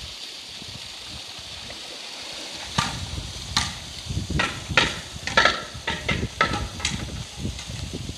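A polar bear hauling itself out of a pool: about ten irregular splashes and slaps of water, starting about three seconds in, as it climbs out and water streams off onto the concrete. Under it runs a steady hiss of flowing water.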